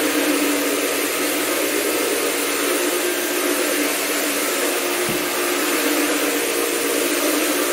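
Counter-rotating brush floor machine running with a steady hum as its brushes scrub a laminate floor.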